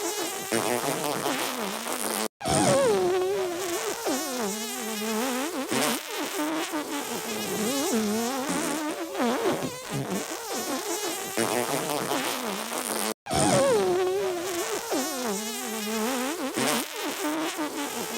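Comic fart and sneeze noises over music, repeating as a loop about every eleven seconds, each pass starting after a brief dropout.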